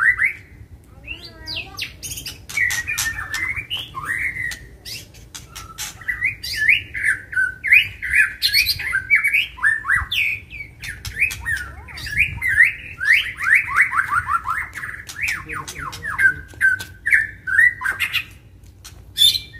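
White-rumped shama (murai batu) in full, aggressive song: a fast, unbroken run of whistled notes and quick pitch sweeps mixed with sharp clicking calls, with a rapid series of repeated falling notes midway.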